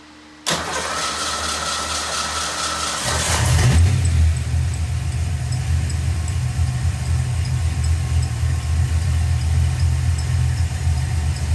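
Fox-body Mustang's 306 small-block Ford V8 being started: the starter cranks for about two and a half seconds, the engine catches with a short rev, then settles into a steady idle.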